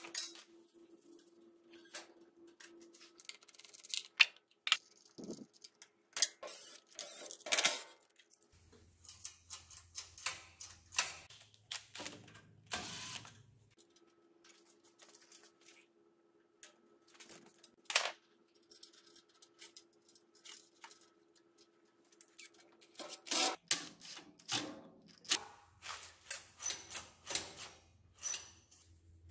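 Irregular small metallic clicks and taps as a throttle cable and its clamp are handled and fitted to a small engine's throttle linkage, with a faint steady hum behind at times.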